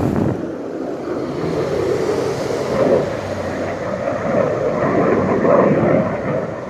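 A loud, continuous rumbling roar from the sky that sounds like a jet or rocket close by, swelling and easing in waves. Its source is unexplained, and the listener wonders whether it is strange-sounding thunder.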